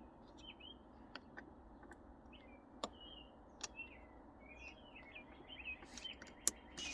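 Birds chirping in short repeated notes, with a few sharp light clicks from small plastic shifter parts being handled.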